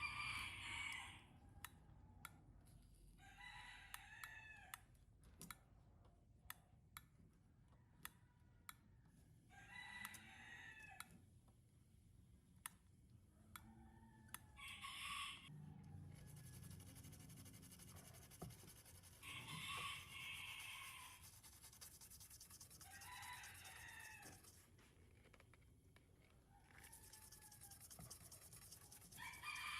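Roosters crowing, faintly and repeatedly: about six separate crows spaced a few seconds apart, with light clicks from work early on.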